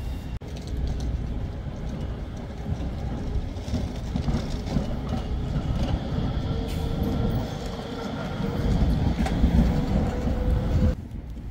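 Electric low-floor tram running past close by: rumbling of wheels on rails with a steady whine from its drive. It grows louder as the tram draws alongside and cuts off suddenly shortly before the end.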